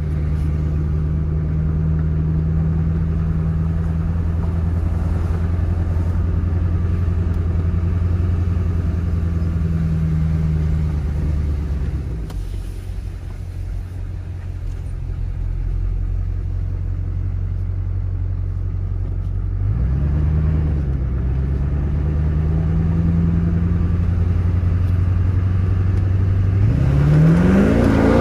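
2003 GMC Sierra pickup engine heard from inside the cab, pulling the truck hard down the road. The note drops about twelve seconds in, shifts again about twenty seconds in, and climbs near the end as the engine revs up.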